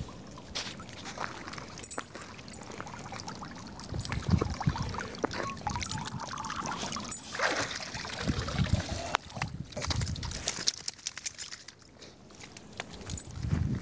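Water splashing and dripping as a wet dog scrambles out of a river onto a stone edge, with a few low thumps.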